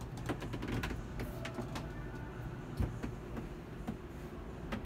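A dozen or so light clicks and knocks, unevenly spaced, over a low steady rumble: handling and footstep noise as a handheld camera is carried through a boat's cockpit.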